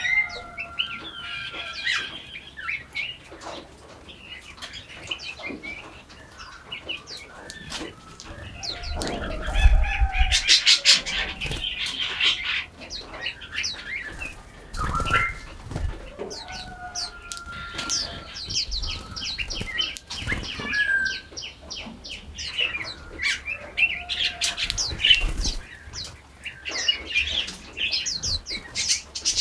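Several songbirds singing at once: overlapping chirps, clear whistled notes and fast rattling trills. A few low thumps come through about ten and fifteen seconds in.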